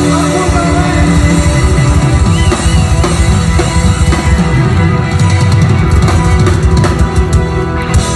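Live rock band playing an instrumental passage: the drum kit comes in hard about half a second in and leads, over electric guitars, bass and keyboards.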